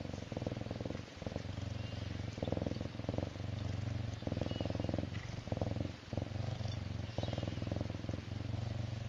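Serval purring steadily, a low pulsing rumble that breaks briefly with each breath, about every second or so.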